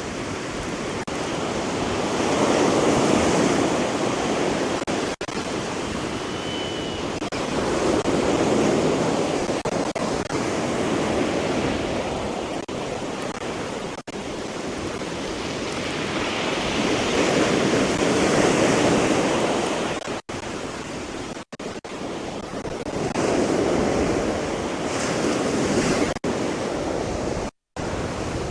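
Sea surf breaking on the beach, swelling and fading about every five to six seconds as each wave comes in. The sound cuts out briefly near the end.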